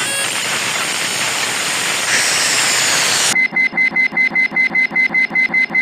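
Cartoon sound effects: a steady hissing rush for about three seconds, then a fast run of short beeping pulses, about seven a second.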